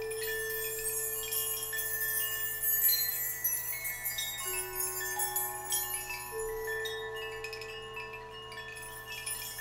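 Hanging metal wind chimes tinkling in a dense, high shimmer, over long ringing tones. New notes sound about four and a half seconds in and again about six seconds in, each holding for several seconds.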